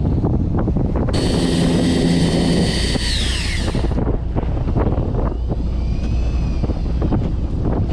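Steady wind and boat noise, with a high motor whine starting about a second in that slides down in pitch and stops about four seconds in.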